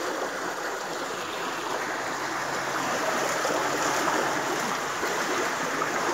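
Stream water rushing through a narrow concrete culvert: a steady, unbroken splashing rush.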